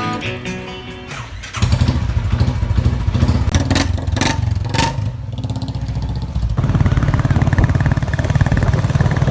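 Acoustic guitar music ends, and about a second and a half in a Royal Enfield single-cylinder motorcycle engine sets in, running steadily.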